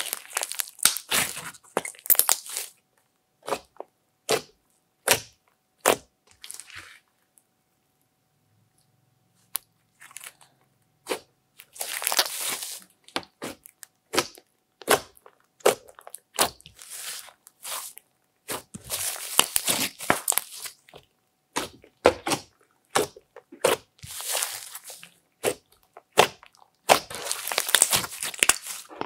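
A large lump of glittery slime, mixed with clay, being squeezed, folded and pressed by hand: clusters of sharp sticky pops and crackles in irregular bursts. It goes nearly silent for a few seconds about a third of the way in.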